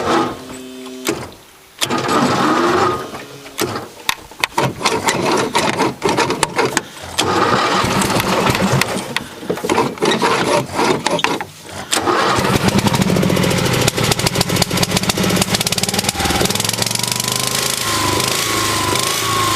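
Terra Jet amphibious ATV's engine being cranked in several tries on a weak, dying battery. It catches about twelve seconds in and then runs steadily.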